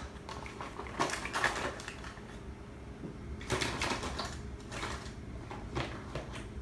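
Tools and small hard objects clicking and rattling as someone rummages through them, in a few short irregular clusters.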